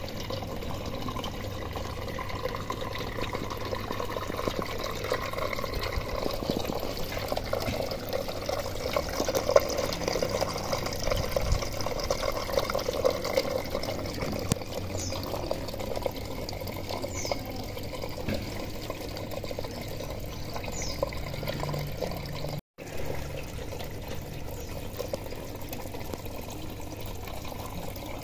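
Water trickling and running steadily through the PVC pipe channels of a hydroponic lettuce system. There is a momentary cut in the sound about four-fifths of the way through.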